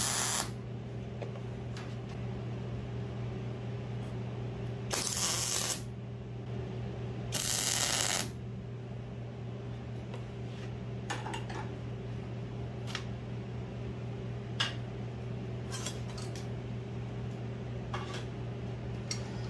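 MIG welder laying short tack welds: a hissing burst of arc ending just as it begins, then two more of under a second each about two seconds apart. Scattered light metallic clinks follow, over a steady low hum.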